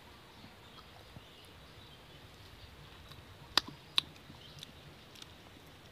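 Roasted palm fruit's stringy flesh being pulled apart by hand: mostly quiet, with two sharp clicks less than half a second apart a little past halfway.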